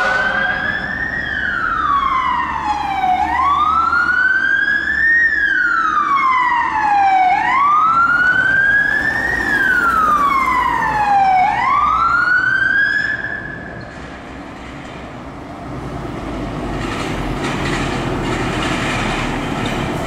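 Scania P360 fire engine's siren wailing, sweeping slowly up and down about once every four seconds. It cuts off about two-thirds of the way through, leaving the truck's diesel engine rumbling louder as it approaches.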